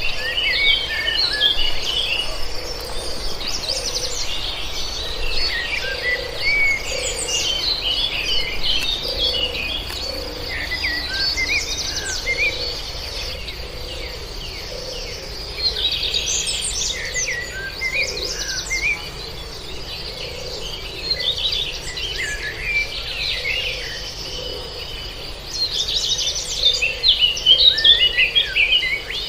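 Several birds chirping and singing in bouts over a steady high-pitched insect drone, with a low soft call repeating about once a second underneath.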